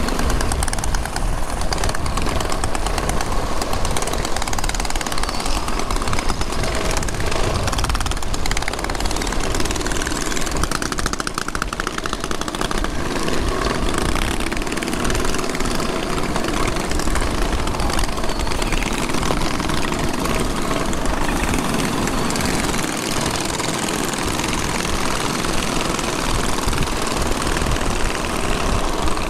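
Several mini bikes' small engines running steadily as a group rides along, heard from the rider's helmet with wind rushing over the microphone.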